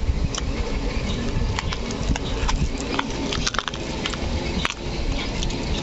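Small fish flapping in a wet cast net on a boat floor: an irregular pattering of light slaps and ticks over a steady low rumble.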